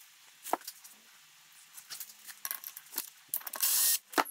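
Irregular ratcheting clicks from a tool tightening the assembly bolts of a BBS LM split rim. A denser run of clicks comes past the middle, and a short, louder rustling burst comes near the end.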